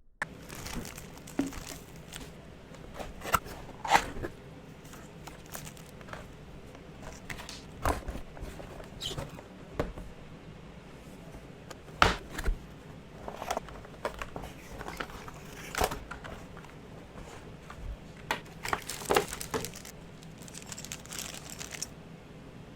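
Keyboard packaging being opened and handled by hand: irregular rustling and crinkling of wrapping, with scattered knocks and taps as the box and its contents are moved.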